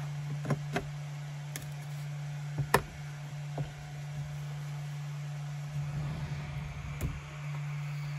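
Ceramic tiles being set down and pushed into place on a plywood bed: a few sharp clicks and knocks, the loudest nearly three seconds in, over a steady low hum.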